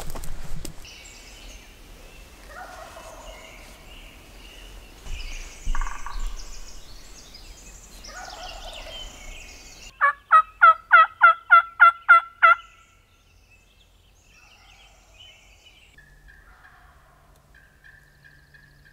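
Turkey calling: fainter calls over the first half, then a loud series of about ten short yelps in quick succession, about four a second.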